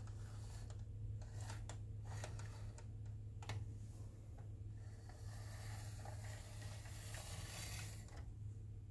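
Faint scattered clicks of marbles knocking together inside a plastic crocodile toy as it is handled and lifted, followed from about five seconds in by a soft rustling of the toy being moved, over a low steady hum.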